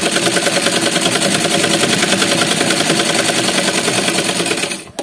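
Sewing machine running steadily while stitching a seam, its needle mechanism clattering in a fast, even rhythm, then winding down and stopping near the end.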